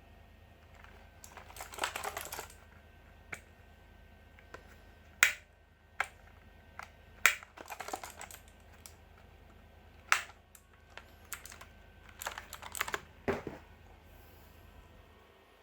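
Keys of an Armaggeddon MKA-5R RGB Falcon mechanical keyboard being pressed: scattered single sharp key clicks and three short flurries of quick presses.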